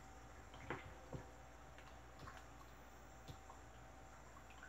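A spoon stirring a thickening oil-and-caustic-soda soap gel in a plastic bucket: near silence with a few faint knocks, the clearest just under a second in.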